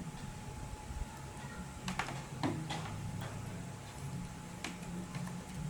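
A few light clicks and small knocks of objects being handled, over a low steady background hum.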